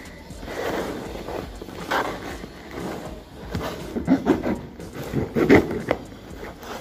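Hands tearing packing tape and handling a cardboard box: irregular short rips, scrapes and knocks, the loudest about five and a half seconds in.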